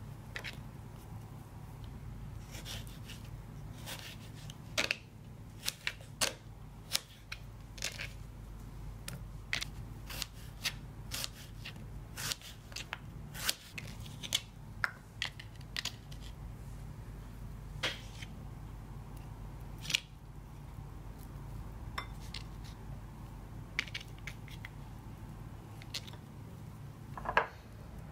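A kitchen knife peeling and slicing fruit on a plastic cutting board: a run of irregular crisp cutting snicks and taps, dense at first and sparser later, with one louder tap near the end. A steady low hum runs underneath.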